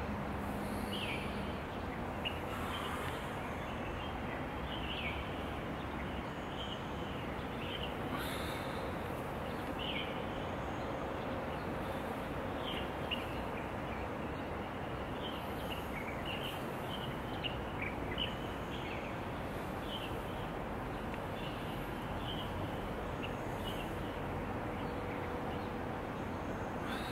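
Outdoor ambience: a steady rush of background noise with small birds chirping over and over in short, high calls.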